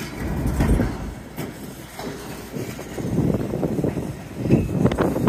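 Freight train of empty centerbeam flatcars rolling past on the rails, the wheels and trucks giving an uneven rumble with a few clicks near the end. Wind buffets the microphone.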